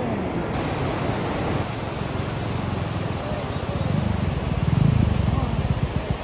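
Steady heavy rain, a dense even hiss, getting louder in the low range about four to five seconds in.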